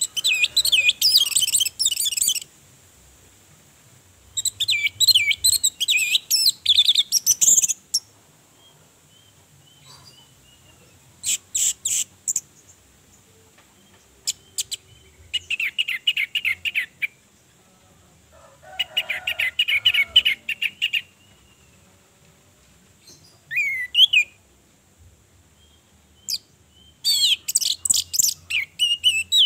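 Orange-headed thrush singing in repeated bursts of rapid, varied high notes, each phrase lasting one to three seconds, with short pauses between.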